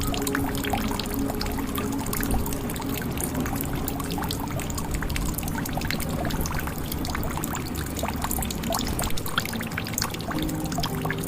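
Water drops falling and trickling into a jug: a dense patter of small drips and splashes, over a soft sustained music drone that fades out partway through and comes back near the end.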